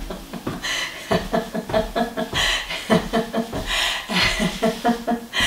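Free laughter in a laughter-yoga session: runs of 'ha-ha' laughter in quick pulses of about five a second, broken by breathy gasps.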